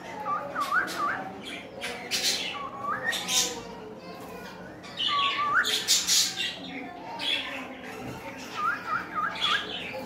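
Cockatiels whistling short swooping notes, with a quick run of three near the start and again near the end, mixed with harsh squawks.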